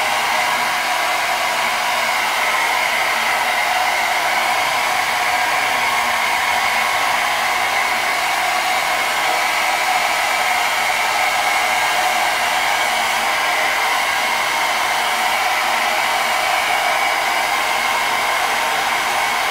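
Handheld hair dryer running steadily, blowing on hair: an even rush of air with a high whine in it.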